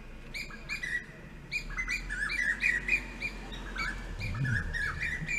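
Small birds chirping: a busy run of short, high chirps, several a second, without a break.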